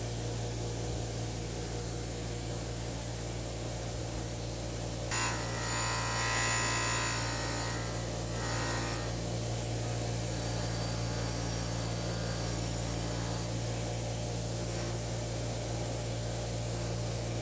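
Bench polishing motor running with a steady hum, a cotton buffing wheel spinning on its tapered spindle. From about five to nine seconds, a glass clock crystal pressed against the buff adds a louder rubbing hiss.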